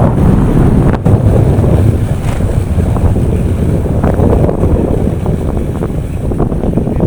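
Strong wind buffeting the microphone, a loud steady low rumble, with a short click about a second in.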